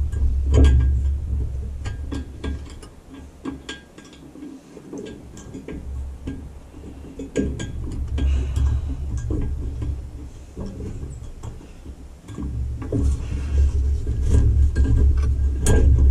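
Light metallic clinks and taps of a screw and fingers against the metal underside of a riding mower near its exhaust mounting, scattered irregularly over a low rumble.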